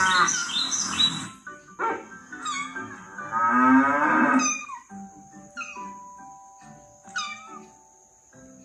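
Recorded animal calls from a children's sound-identification clip, several separate calls over background music, the loudest in the first half.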